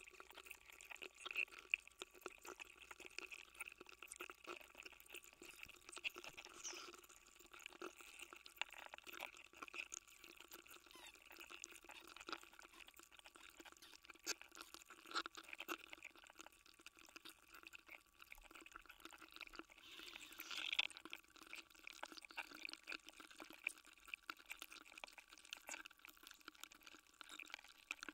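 A block of ice melting while submerged in water, picked up by contact microphones frozen inside it: a constant fine crackling and ticking through the ice. A few louder pops stand out, about two seconds in and again around twenty seconds in.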